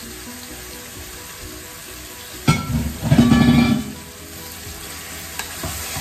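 Wooden spatula stirring spinach paste into sizzling masala in a metal pot: a knock against the pot about two and a half seconds in, then about a second of loud scraping, over a steady low sizzle.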